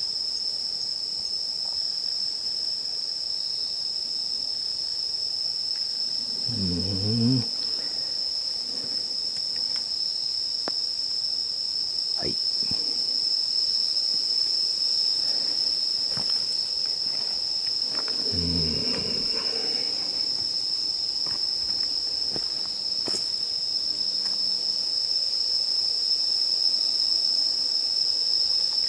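A steady, unbroken high-pitched chorus of night-singing insects.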